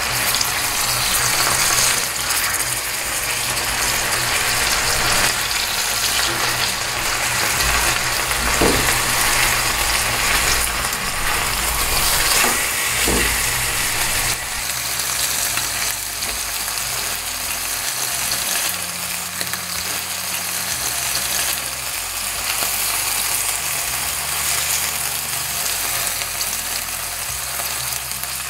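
Beef pieces sizzling steadily as they sear in hot oil in a stainless steel pan, with a few light knocks.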